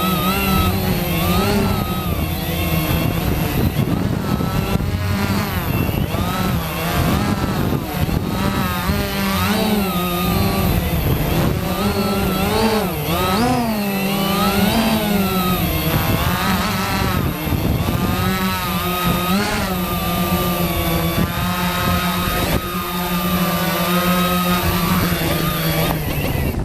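Quanum Nova quadcopter's electric motors and propellers whining in flight, several pitches rising and falling together as the throttle changes.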